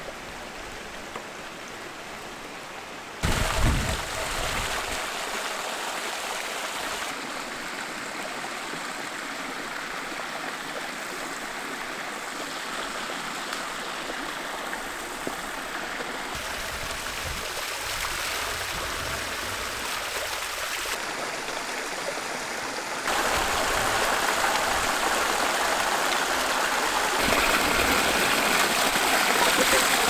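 Mountain stream rushing over rocks, a steady wash of water that steps up in level several times and is loudest near the end, where water pours down a small cascade. A brief low thump about three seconds in.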